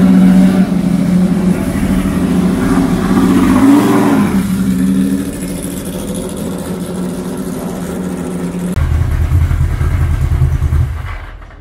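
Racing car engine idling with a steady note and a brief rev about four seconds in. A deeper engine rumble takes over about nine seconds in and dies away just before the end.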